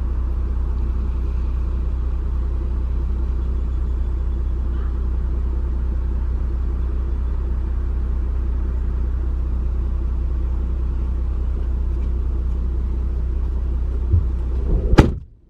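Steady low drone of engine and road noise heard inside a moving car's cabin. Near the end come a couple of soft knocks and one sharp click, then the sound cuts off.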